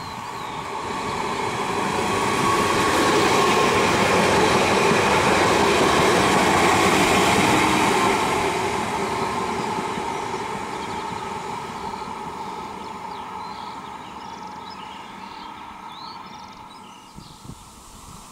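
Newag Impuls electric multiple unit passing at speed, with the rumble and hiss of wheels on rail and a faint whine. The sound builds over the first few seconds, holds loudest for about five seconds, then fades slowly as the train moves away.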